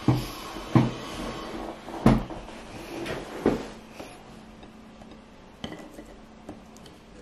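Four dull knocks and bumps in the first few seconds as a person sits down at a table, the chair and table knocking, then a few light clicks as a pastry is picked up off a ceramic plate.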